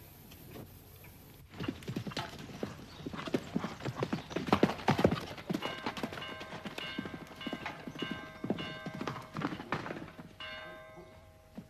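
Horse galloping on a dirt track, hoofbeats coming quickly and unevenly after a short quiet start. From about halfway a repeated ringing tone sounds over the hoofbeats.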